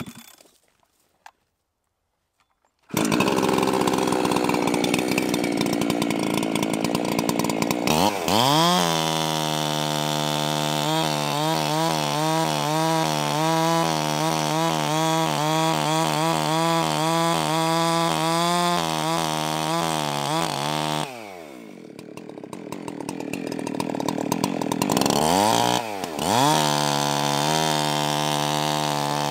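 Ported two-stroke Husqvarna 372XP chainsaw bucking a fallen log. After about three seconds of near silence it starts running, and about eight seconds in it revs to full throttle and cuts steadily, its pitch wavering under load in the wood. About two-thirds of the way through the throttle drops and the pitch falls, then it revs back up and cuts again through the end.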